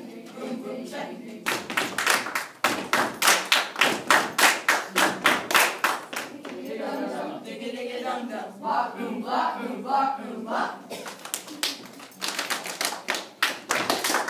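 A group of children performing body percussion in unison: sharp claps and slaps on a steady beat, about three or four a second. Midway the strokes give way to the group's voices in unison for several seconds, then the clapping rhythm comes back.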